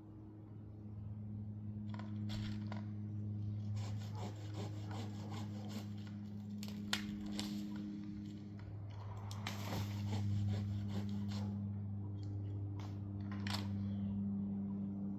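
A steady low engine hum, with irregular rustling, scraping and knocking of wood and branches over it and one sharp knock about seven seconds in.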